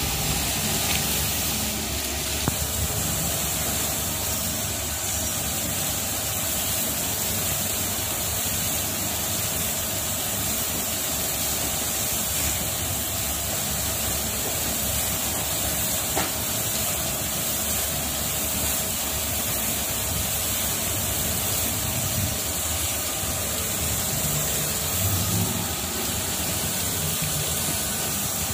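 Steady hiss of water spraying from the jets of an automatic train wash, over a low, even rumble.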